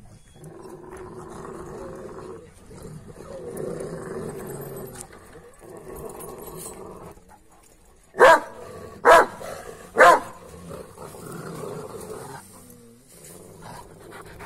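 A dog growling at length, broken by three loud barks about a second apart near the middle, then growling again.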